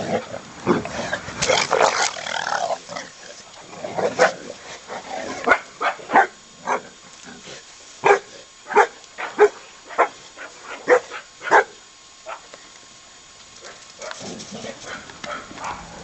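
Shar-Pei dogs barking while they play: short, sharp barks, a run of them about every half second from about four to twelve seconds in, dying away near the end.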